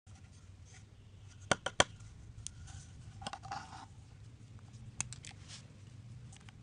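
Hand-handling sounds of a PVC pipe and a marker pen: a quick run of three sharp clicks about a second and a half in, then scattered lighter clicks and a brief soft rustle.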